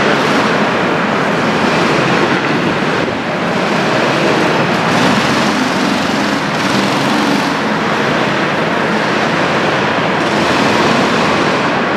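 Go-kart engines running on an indoor karting track: a loud, steady engine noise from several karts in a large hall.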